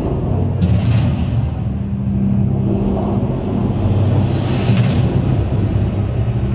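Strong wind buffeting the microphone, a heavy low rumble, over the show's music with low held notes.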